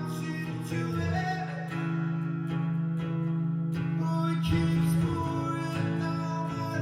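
Live solo music: guitar playing a held low note under a melody.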